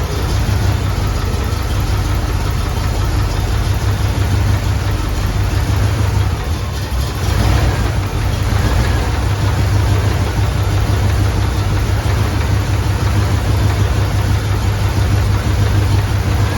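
Chevrolet 283 small-block V8 with throttle-body fuel injection idling steadily, with a brief dip and change in its sound about seven seconds in.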